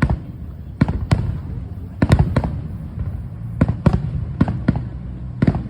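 Fireworks exploding: a run of about ten sharp bangs, some coming in quick pairs, with uneven gaps between them.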